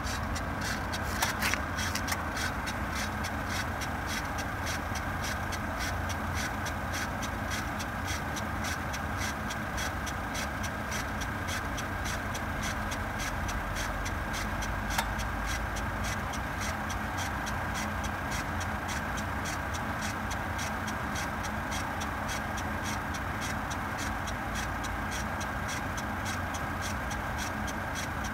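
A Volvo running after a cold start, with a grinding noise from the right front wheel well: an even, rhythmic ticking about three to four times a second over a steady whine and the low hum of the engine.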